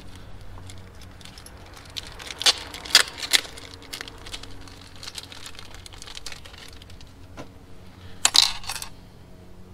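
Light metallic clinks and clicks of hand tools and small parts being handled while hoses are worked on in a car's engine bay. A cluster of sharper clinks comes about two and a half to three and a half seconds in, and another just after eight seconds.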